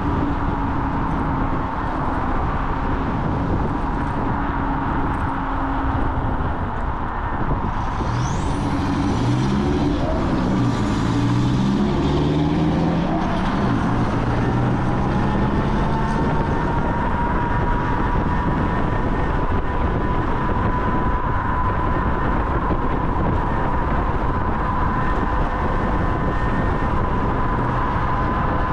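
Kaabo Wolf King GT electric scooter riding at speed: steady wind rush on the chest-mounted camera with a thin motor whine that rises slowly in pitch in the second half, then holds. About eight seconds in, a lower droning with stepping pitches joins for several seconds.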